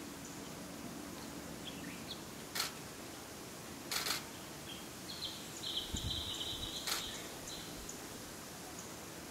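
Camera shutter clicking: one click, then a quick double click, then one more, over scattered short high bird chirps. About six seconds in, a steady high bird call lasts about a second.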